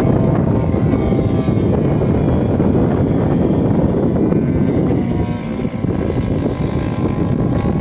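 Wind buffeting the microphone over the distant drone of a 50cc petrol engine driving the propeller of a radio-controlled model plane in flight, its pitch drifting up and down as it manoeuvres.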